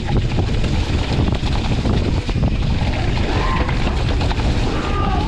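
Wind rushing over the microphone of a mountain bike riding fast down a dirt trail, with tyre noise and a steady run of small knocks and rattles as the bike goes over rough ground.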